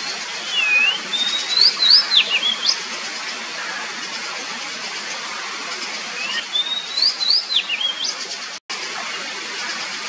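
Oriental magpie-robin singing: two short phrases of clear whistled notes that glide up and down, one near the start and one about six seconds in, over a steady hiss.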